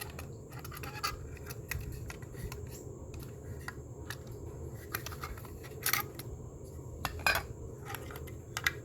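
Small metal parts of a car dash clock being handled: irregular light clicks and clinks, with two louder clinks near the end, over a steady low hum.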